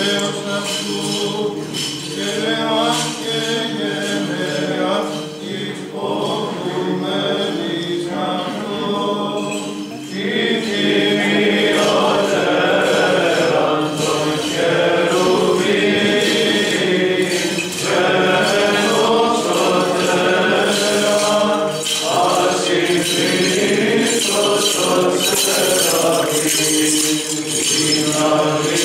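Unaccompanied Orthodox liturgical chant sung by a group of voices, growing louder about ten seconds in.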